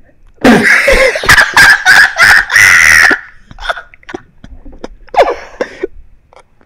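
A man laughing loudly and high-pitched in a string of quick pulses for about three seconds, then a few quieter chuckles.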